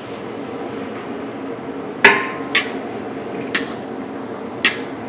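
A metal spatula clanking against a large wok four times while stir-frying, the first knock the loudest and ringing briefly, over a steady hiss.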